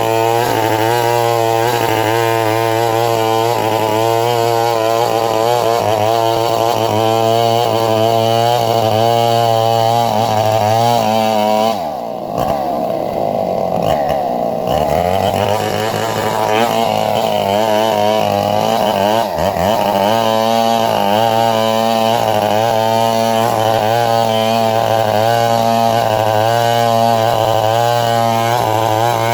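Two-stroke chainsaw running at high revs while cutting a coconut palm trunk. Its engine note drops for about three seconds near the middle, then climbs back, with another brief dip a few seconds later.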